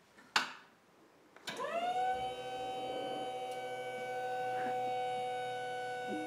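Caterpillar electric walkie stacker's hydraulic pump motor spinning up with a quickly rising whine, then running at a steady pitch as the forks lift a person. A sharp click comes just before it.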